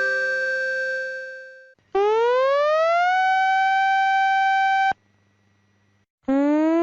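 An electronic emergency-alert siren tone. A last chime note fades out, then a buzzy siren tone rises in pitch over about a second, holds steady for nearly two seconds and cuts off abruptly. After about a second's pause, a second rise begins near the end.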